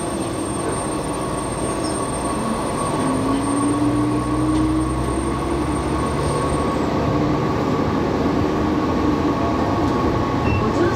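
Diesel railcar pulling away and gathering speed, heard from the driver's cab: the engine works under power, its note rising in the middle, over steady wheel and track noise.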